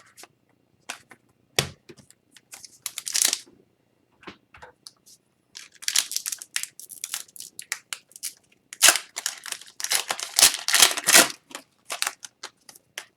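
Trading card pack wrapper crinkling and tearing, with cards being handled in between: scattered light clicks and rustles, and bursts of crinkling about three seconds in and again through the second half.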